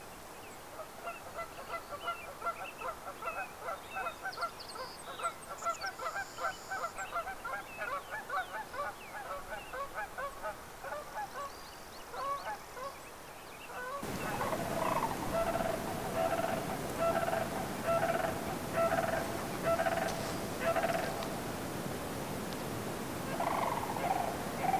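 Many short animal calls in quick, overlapping succession, as from a calling flock or herd. About 14 s in the background grows louder and the calls carry on, more evenly spaced.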